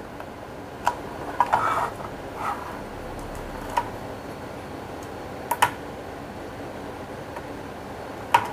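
Scattered short, sharp clicks and taps from handling an mcHF kit transceiver and pressing its front-panel push-buttons to power it on, over a steady hiss. A small cluster comes about one and a half seconds in, a double click about five and a half seconds in, and another click at the very end.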